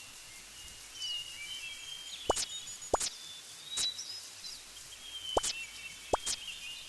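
Birds chirping and twittering, broken by about five sharp, sudden plop-like strokes at irregular intervals.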